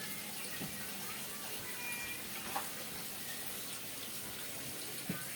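Laksa broth bubbling in a pot on the stove, a steady hiss, with a few faint clicks of utensils.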